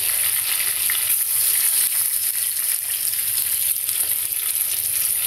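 Beef chapli kababs frying in hot ghee in a nonstick pan, the fat sizzling and crackling steadily.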